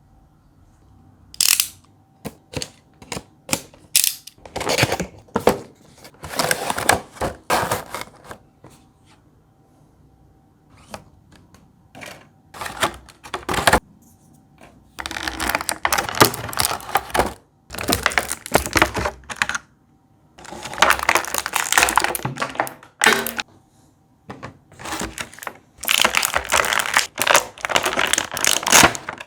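Cardboard and plastic toy packaging being handled and opened: a run of sharp taps and clicks with longer spells of rustling and scraping.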